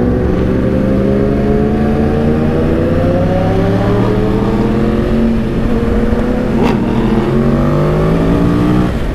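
Yamaha R1's inline-four engine under steady acceleration, its pitch climbing slowly, easing about four seconds in, then climbing again. A short sharp click near seven seconds in.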